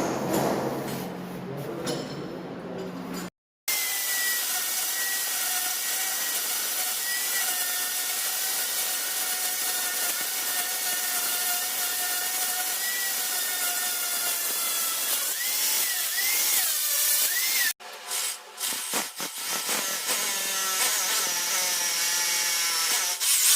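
Electric power tool running under load with a steady whine over a hiss, its pitch wobbling for a few seconds before it stops. Then it runs in short stop-start spells.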